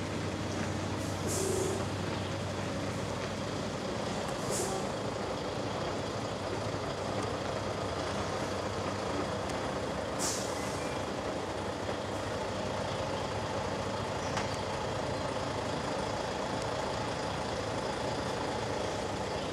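Diesel engine of a semi tractor running steadily at low speed while it works a hydraulic boat trailer around a corner. Three short air hisses from the truck's air brakes break in: about a second and a half in, near four and a half seconds, and about ten seconds in.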